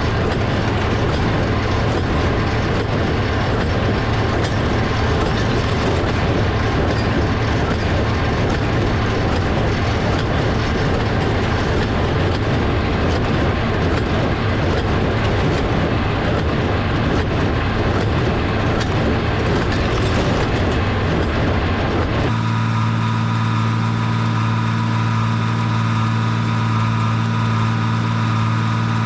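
Tractor engine running steadily while pulling a working small square baler through the hay. About three-quarters of the way through the sound changes abruptly to a smoother, steady engine drone.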